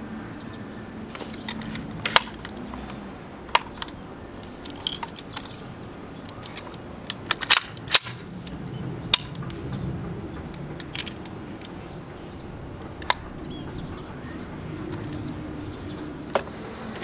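Sharp metallic clicks and clacks from a WE M4 RIS gas-blowback airsoft rifle being handled: about a dozen single snaps spread out, the loudest cluster about seven to eight seconds in.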